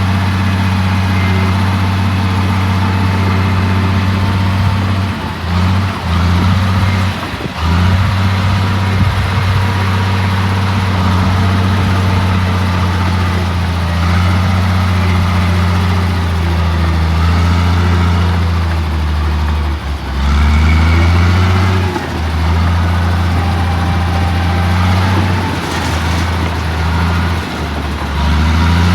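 Bulldozer's diesel engine running, its note stepping up and down several times, with short dips in level about five to seven seconds in and again around twenty seconds.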